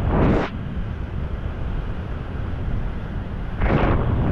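Wind buffeting the camera's microphone during a parachute descent: a steady low rumble, with a louder gust in the first half second and another near the end.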